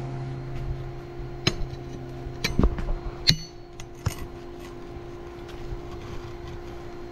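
Pick mattock's steel head striking and chipping the old mortar bed and marble paver edges, about five sharp clinking strikes in the first four seconds, under a steady low hum.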